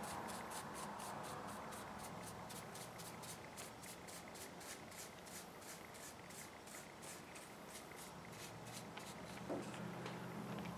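Varnish being worked over a painted wooden carving in quick, even strokes, about four a second, that stop near the end. A soft bump comes just before the end.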